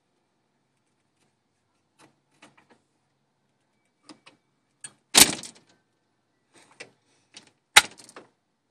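Cat food bowl clinking and clanking as a squirrel eats from it: scattered light clicks, then two loud clanks about five and eight seconds in.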